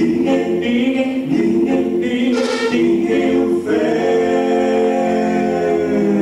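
Male vocal quartet singing a cappella in close harmony into microphones, settling into a long held chord about four seconds in.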